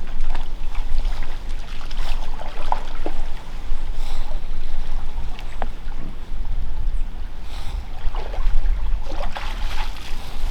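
Water splashing in a creek in irregular bursts, as from a deer swimming across, under a steady low rumble of wind on the microphone.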